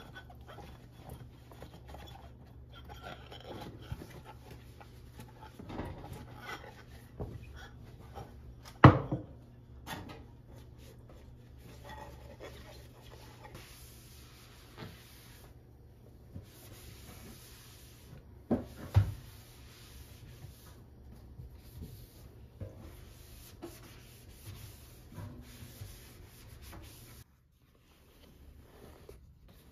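Cloth rubbing over glass cups and a stainless-steel sink as they are dried and wiped, with a few sharp knocks: a loud one about nine seconds in and a pair near nineteen seconds. A steady low hum runs underneath until it cuts off near the end.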